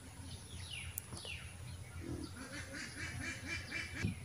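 Faint background bird calls: thin falling chirps, then a quick run of short low calls, about four or five a second, from about two seconds in. A single soft knock near the end.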